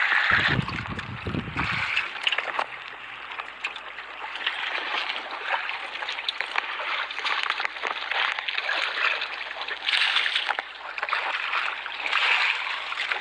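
Water sloshing and splashing without pause, with scattered small knocks through it and a brief low rumble in the first couple of seconds.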